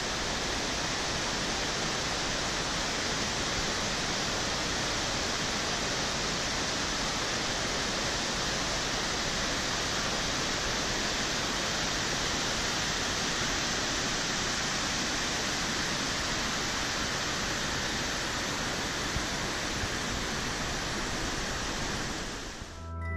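Waterfall and rocky stream rushing, a steady, even roar of falling water that fades out near the end.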